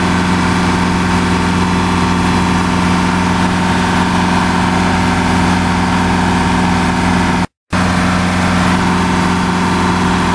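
A sailboat's engine running steadily under way, a constant drone with hiss from water and wind. The sound cuts out completely for a split second about three-quarters of the way through, then resumes unchanged.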